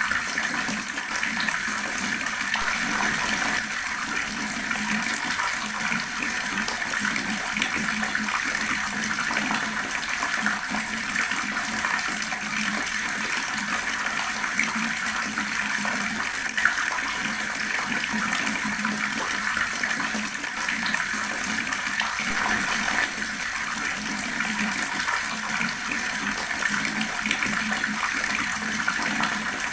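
Water running from a tap in a steady, gurgling stream.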